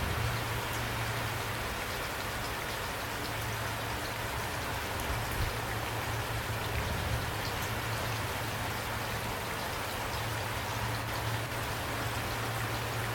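Steady rain, drops pattering on a surface in an even hiss with fine scattered drop ticks, over a steady low hum.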